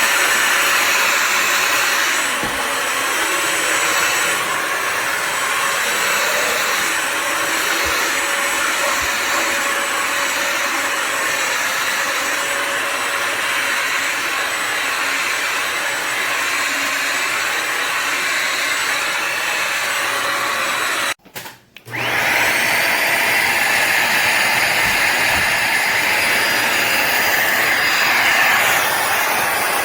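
Bissell Symphony Pet steam mop and vacuum running with a steady rushing sound and a faint high whine. About two-thirds of the way through it cuts out for under a second, then starts again, its whine rising as the motor spins back up.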